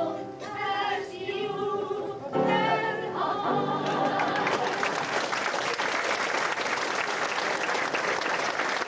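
Three women sing the closing phrase of a song together, ending on held notes. About three and a half seconds in, the audience breaks into applause, which carries on steadily.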